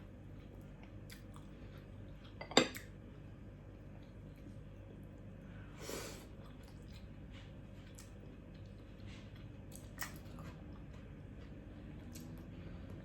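Eating at a table: spoon and fork clinking on a plate, with quiet chewing in between. One sharp clink about two and a half seconds in is the loudest sound, with a smaller clink near the end.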